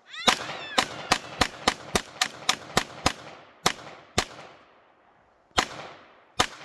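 Semi-automatic pistol fired about fourteen times: a quick string of shots, roughly three or four a second, for the first three seconds, then slower single shots spaced about half a second to a second and a half apart.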